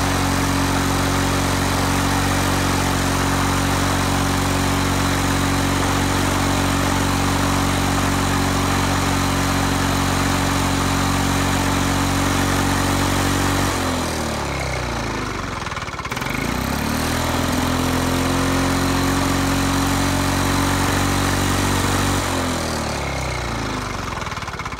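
Single-cylinder two-stroke engine of an International Harvester 3322 (Lawn-Boy-built) push mower running steadily at normal speed on a freshly cleaned carburetor. About 14 s in it slows and wavers as the throttle knob is turned, then picks back up to a steady run. Near the end it winds down and stops.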